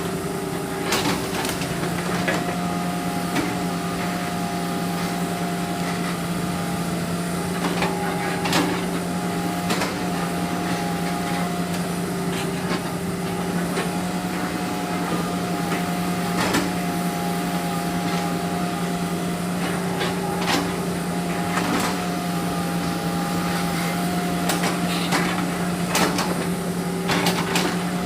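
Excavator engine running steadily while it works logs, with sharp knocks every second or few seconds.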